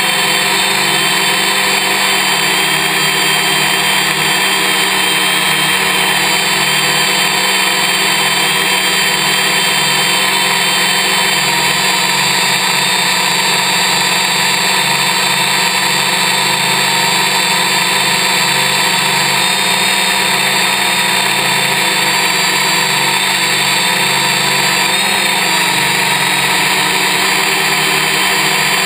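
Electric motors and propellers of a Y6 multicopter running steadily in flight: a loud, dense whine of several steady tones, whose pitch briefly wavers near the end.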